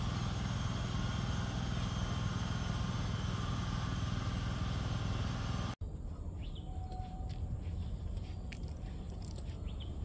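Outdoor ambience recorded on a phone while walking, with wind rumbling on the microphone. An edit cut about six seconds in changes the background to a quieter rumble with a few faint clicks and short chirps.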